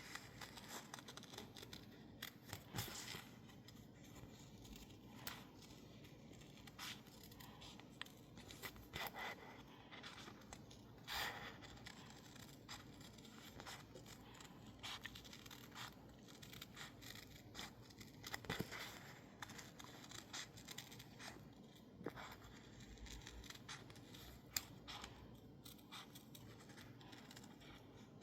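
Scissors cutting through sticker label paper backed with masking tape: a run of faint, irregular snips and paper rustles.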